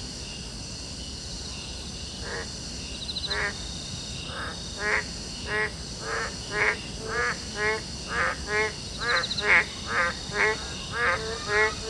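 A frog croaking over and over in short calls, about two a second, starting about two seconds in and getting louder, over a steady high chirring of insects with a few brief trills.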